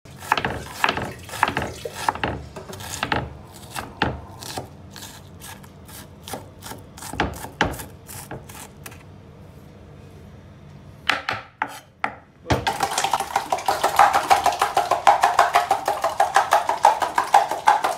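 Knife chopping a red onion on a cutting board, sharp irregular strikes, several a second. After a brief lull it gives way, about two-thirds of the way in, to a fast continuous clatter of a spoon stirring rapidly in a plastic cup.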